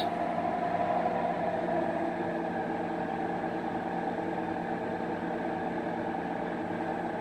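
A semi truck's diesel engine idling, a steady, even hum.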